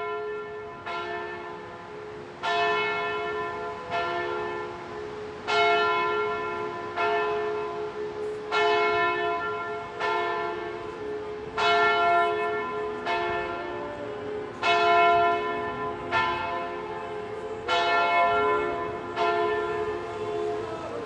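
Church bells tolling, a new stroke about every second and a half, each ringing on under the next.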